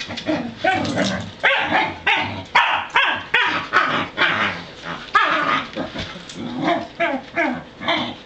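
Pembroke Welsh Corgi barking and yipping over and over, about two short calls a second, with some whines and grumbles mixed in: a young corgi's excited noise while being leashed to go outside.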